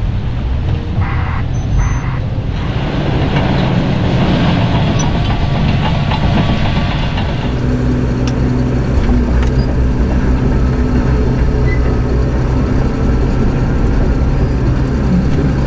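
Caterpillar D6N crawler dozer's diesel engine working steadily under load while pushing Type 1 crushed stone, with the tracks clanking. The engine drone shifts to a slightly different pitch about halfway through.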